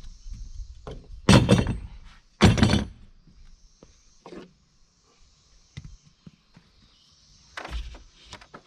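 Heavy wooden thunks and knocks from footsteps on a plywood floor and a framed stud wall being handled. Two loud thunks come about a second apart, then fainter knocks, with more thunks near the end.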